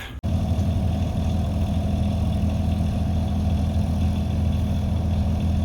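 A vehicle engine idling steadily: a constant low hum with a mid-range rumble, starting abruptly just after a cut.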